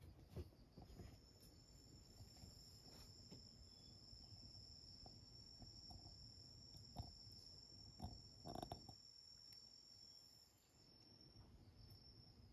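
Near silence: room tone with a faint, steady high-pitched whine that breaks off near the end, and a few soft knocks.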